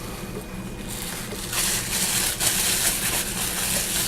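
Rustling and handling noise, a scratchy hiss that comes in uneven waves and grows louder about a second and a half in, as the flashlight is handled and taken out.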